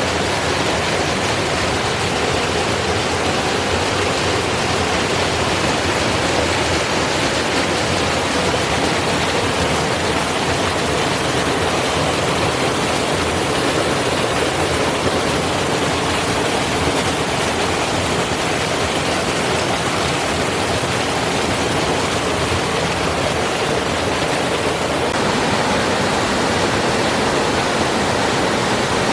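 Little Bird Falls, a 20-foot waterfall with several cascades, rushing in a steady, loud, even roar of falling water. The tone shifts slightly near the end.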